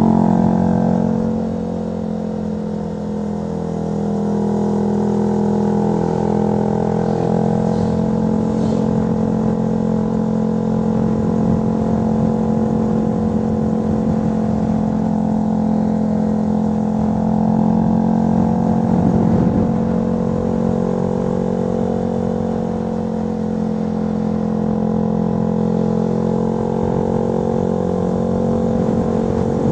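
Honda CB125R's single-cylinder engine through a LeoVince LV One Evo aftermarket exhaust, riding along a winding road. The throttle eases off briefly shortly after the start, then the engine picks up and runs at a fairly steady pitch.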